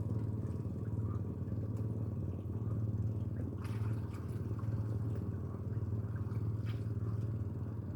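A small engine running steadily at an even speed, a continuous low hum, with a couple of faint clicks about four and seven seconds in.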